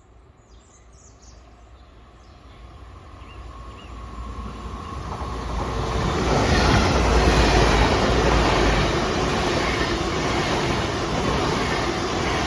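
Great Western Railway Class 802 bi-mode train passing through the station without stopping. A faint steady tone and a rising rumble as it approaches give way, about six seconds in, to a loud, steady rush of wheels on rail and train noise.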